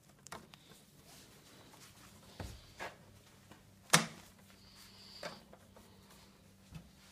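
Sling clip studs being unclipped from a patient-hoist spreader bar: a few scattered light clicks and knocks, the sharpest about four seconds in.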